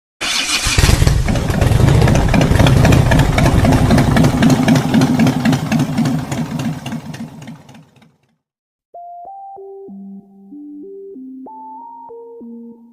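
A loud, rough noise with a fast even pulse that fades away over about seven seconds. After a second of silence, a synthesizer keyboard starts a melody of single clean notes near the end.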